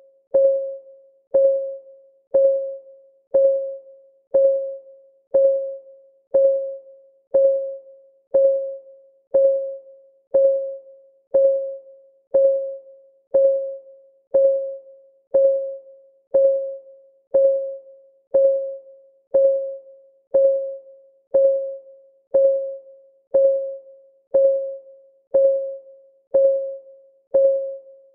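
Clock-style ticking of a countdown timer: one short, pitched tick about every second, each dying away quickly, at an even steady pace.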